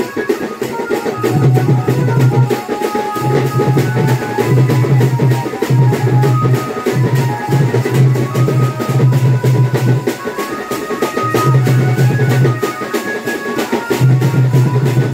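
Dance music with a fast, steady drumbeat, a deep bass line that drops in and out, and a melody line over it.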